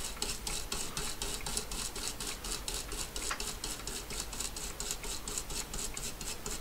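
Small brush scrubbing back and forth over the contacts of a microSD card slot, about four strokes a second, working oxide-remover contact spray into them. The strokes stop near the end.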